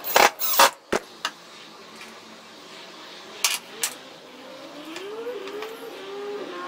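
A cordless drill run in a few short bursts, driving into a metal bracket, followed a few seconds later by a couple of sharp clinks of small metal parts being handled on a workbench.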